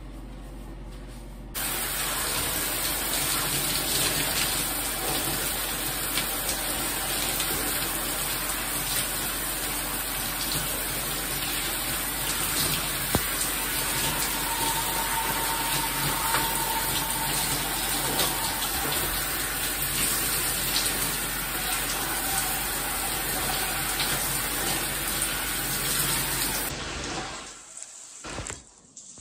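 Shower spray running steadily onto hair and skin as shampoo lather is rinsed out. The spray starts suddenly about a second and a half in and falls away unevenly near the end.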